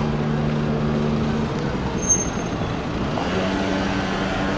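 Road traffic: truck and car engines running in the street, a steady hum with a brief high squeal about two seconds in.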